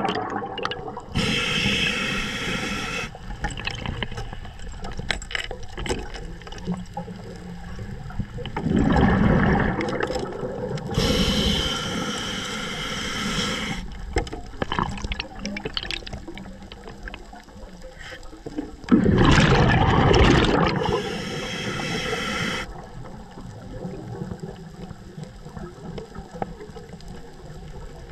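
Scuba diver breathing through a regulator underwater: hissing inhalations drawn through the regulator alternate with rumbling bursts of exhaled bubbles, a breath roughly every ten seconds, with small scattered clicks between them.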